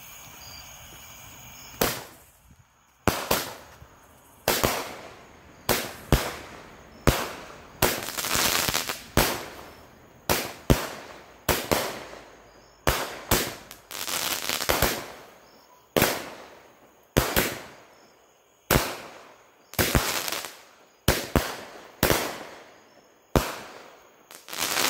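A Cutting Edge Diamondback 16-shot fireworks cake firing. A fuse hisses for about two seconds, then the cake fires shot after shot, about one a second, each a sharp report that fades out, with a few ringing on longer.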